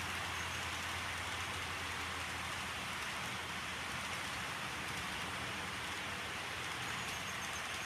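HO scale model freight train rolling past: a steady rushing hiss of many small metal wheels on the rails, with a low steady hum underneath.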